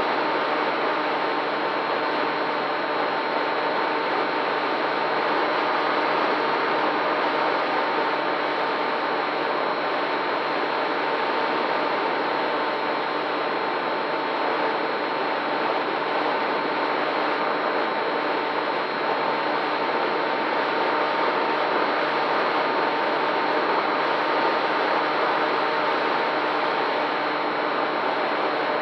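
FPV quadcopter's electric motors and propellers running steadily, a continuous whirring noise with faint steady tones, picked up by the drone's own camera.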